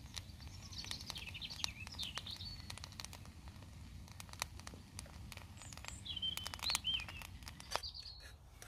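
Faint warbling birdsong, with high chirping phrases about a second in and again around six to eight seconds. Under it come scattered light clicks of a metal spoon against an aluminium camping pot.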